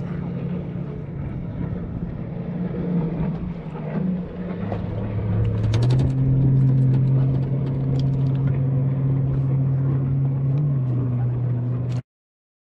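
Boat engine running steadily, growing louder and deeper in pitch about five seconds in, with a few light clicks around the middle. The sound cuts off abruptly near the end.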